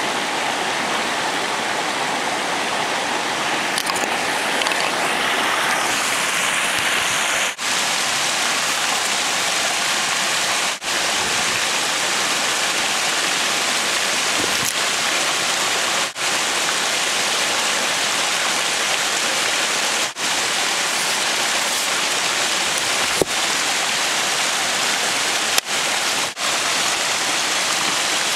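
Mountain creek water rushing steadily close by, a loud even wash. The sound drops out for an instant several times.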